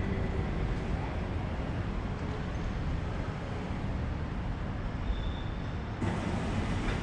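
City street traffic noise: a steady low rumble of vehicles on a nearby road, shifting abruptly about six seconds in.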